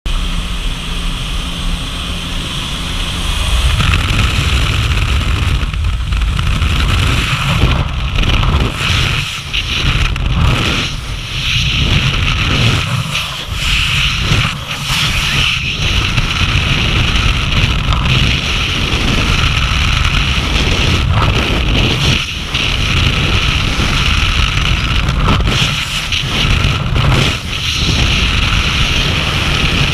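Wind rushing and buffeting over a helmet camera's microphone in skydiving freefall. For the first few seconds, aircraft engine and slipstream noise at the open door, then the wind noise jumps louder as the jumper leaves the plane and carries on, gusting unevenly.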